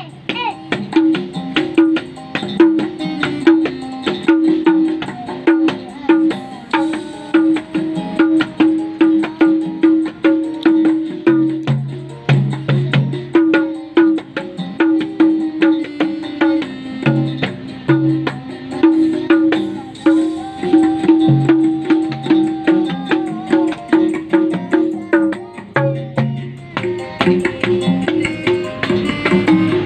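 Dangdut koplo music with a fast, busy hand-drum beat, and a child slapping along on small toy hand drums.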